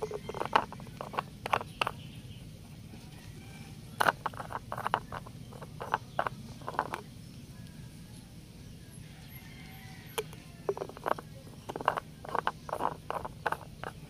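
Plastic vent caps on a new lead-acid truck battery being twisted in their cell openings, giving clusters of short plastic clicks and scrapes, over a low steady hum.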